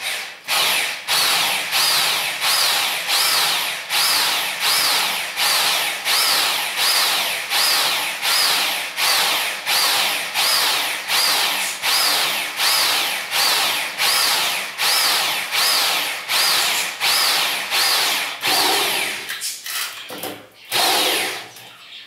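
Corded electric drill boring into a wooden board, its whine swelling and dropping in an even pulse a little under twice a second. Near the end it stops and starts in a few short bursts.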